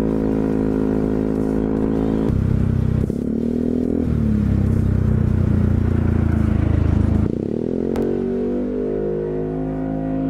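Yamaha Zuma 125 scooter's single-cylinder four-stroke engine running while riding, its pitch steady at first, then jumping abruptly about two seconds in and again about seven seconds in, and wavering up and down near the end as the throttle changes.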